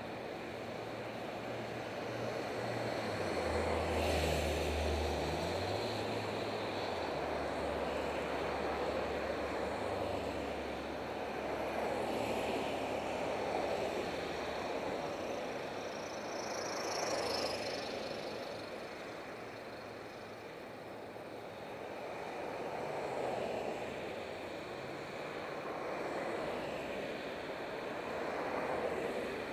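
Wind noise on a bicycle helmet camera's microphone while riding, mixed with car traffic passing in the adjacent lanes, swelling and fading every few seconds. A deeper vehicle rumble comes about four seconds in.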